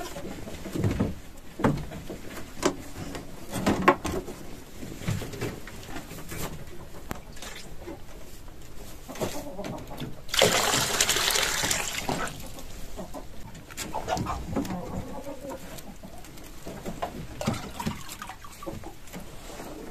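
Dry rabbit feed poured from a plastic pot into a metal hopper feeder: a rattling rush of grains lasting about two seconds near the middle. Around it are scattered knocks and clicks of the hutch doors and feeders being handled.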